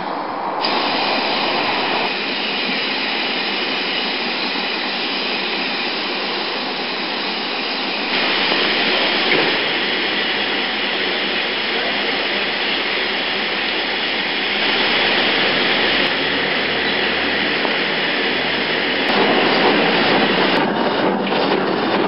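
BR Standard Class 4 2-6-4 tank locomotive 80002 hissing loudly and steadily with escaping steam. A quick run of pulses comes in near the end as the engine works.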